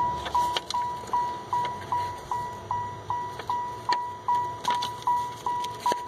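Vehicle warning chime dinging steadily, one high single-pitched ding about two and a half times a second, each fading quickly. A few faint clicks sound over it.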